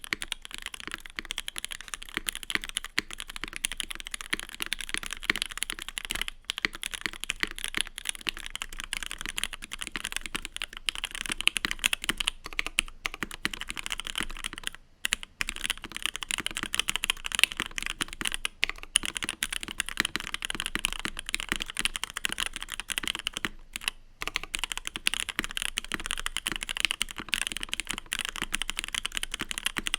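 Continuous typing on a custom mechanical keyboard with lubed and filmed C3 Tangerine V2 linear switches on a gummy-worm-mounted aluminium plate. A few seconds in, the keycaps change from GMK ABS caps, higher-pitched with loads of clack, to CRP Tulip caps, deeper in tone with less clack.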